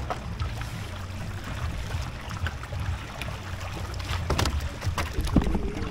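Water lapping and trickling against a kayak hull, over a steady low rumble, with a few sharp knocks near the end.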